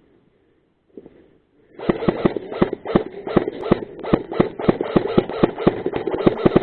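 Airsoft guns firing a rapid, uneven string of sharp shots, about six a second, starting about two seconds in.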